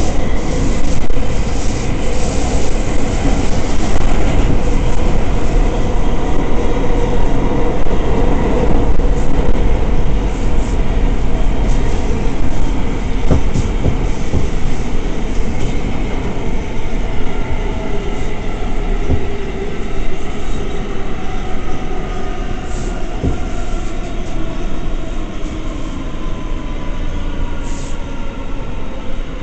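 Ride noise inside a New York City R179 subway car at speed: wheels on rail and motor hum, with a few sharp clicks over rail joints. Over the second half the noise grows quieter and a whine falls steadily in pitch as the train slows.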